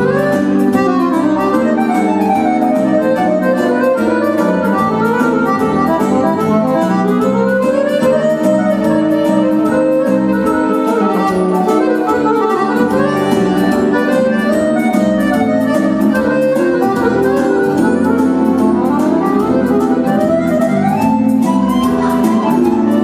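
Roland digital accordion playing quick runs up and down the keyboard, over keyboard-synthesizer accompaniment with a steady beat.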